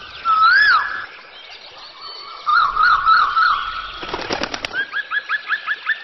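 Electronic alarm siren cycling through its tone patterns: a rising-and-falling whoop, then a fast warble, a short run of rapid clicks about four seconds in, then quick repeated upward chirps, about four a second.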